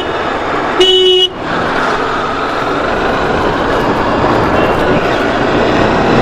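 A vehicle horn blasts once, for about half a second, about a second in, over the steady wind rush and engine and road noise of a moving motorcycle.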